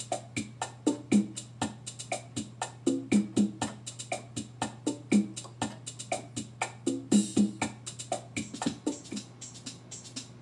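Background music played on an electric piano: a quick, steady drum-machine beat of about four to five strokes a second, with short low keyboard notes, over a steady low hum.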